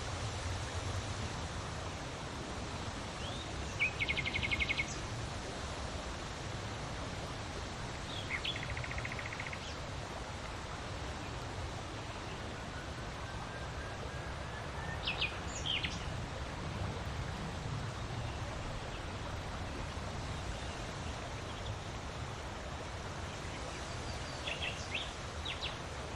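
Wind blowing steadily, with an uneven low rumble of gusts. Birds call over it: a rapid trill about four seconds in, another about nine seconds in, short chirps around fifteen seconds and a few more near the end.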